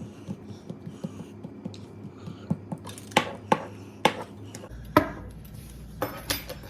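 Biscuit dough being cut into small pieces: a run of light taps, about three a second, then several sharper clicks and knocks in the second half.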